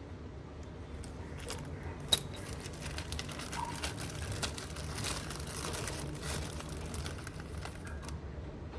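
Crinkling and rustling of something being handled, with scattered small clicks and one sharp click about two seconds in.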